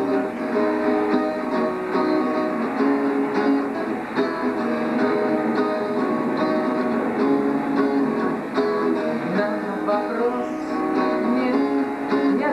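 Acoustic guitar played by hand: an instrumental passage of picked and strummed chords, with no singing.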